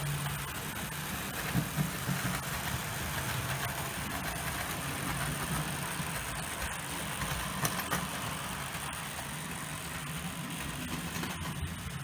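OO gauge model trains running: a steady electric motor hum with wheels rolling along the track and a few light clicks.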